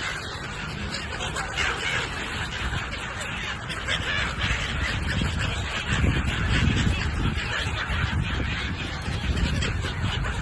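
A large flock of gulls calling continuously, many overlapping cries, with a low rumble joining from about six seconds in.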